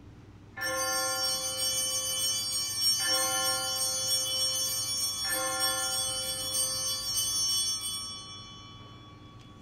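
Altar bell struck three times, each strike ringing on into the next, then fading out. The ringing marks the elevation of the consecrated host at Mass.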